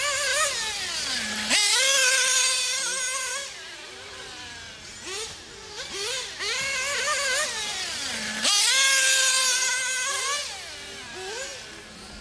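Nitro RC buggy engines racing, their whine rising and falling as they rev through the corners. A falling pitch comes just before each of two loud bursts of acceleration, about a second and a half in and about eight and a half seconds in.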